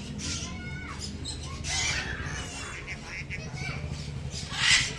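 Birds squawking with short, harsh calls every second or so, the loudest one near the end, over a background of people's chatter.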